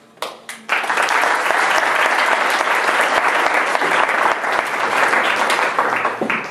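Audience applauding: a few scattered first claps, then full, steady applause that dies away near the end.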